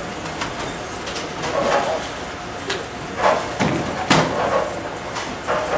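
Bowling alley ambience: distant voices with scattered knocks and clatter of balls and pins from other lanes, the sharpest crack about four seconds in.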